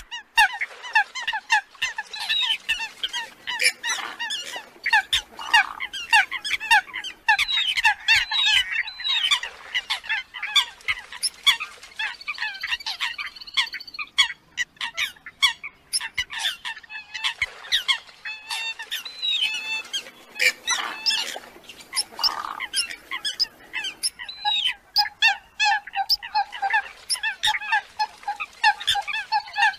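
Several Eurasian coots calling together in a dense, overlapping stream of short, sharp calls and honking notes, with a couple of brief lulls. It is a recorded coot-call lure track of the kind played to draw coots in for trapping.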